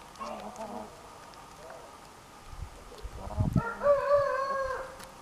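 Orpington rooster crowing once, a single drawn-out crow starting about three and a half seconds in, after a few soft hen clucks.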